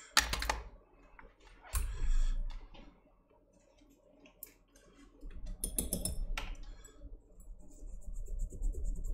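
Irregular small clicks, taps and light scraping of hand tools being handled on a workbench, with a dense run of clicks in the second half.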